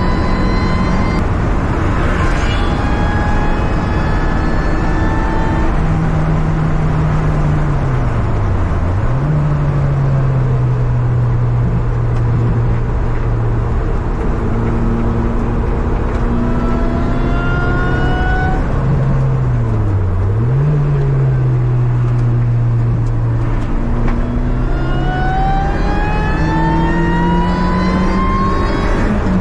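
Car engine at speed on a race track. The revs dip sharply and pick up again twice, hold steady in between, and climb near the end, over steady wind and road noise.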